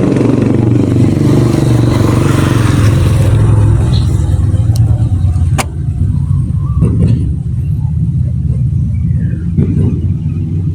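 Motor vehicle running on the road with a steady low rumble. A louder rush of road noise in the first few seconds, then a few sharp clicks.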